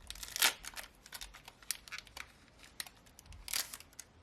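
Foil wrapper of a Pokémon booster pack crinkling and being torn open: a run of sharp crackles, loudest about half a second in and again near the end.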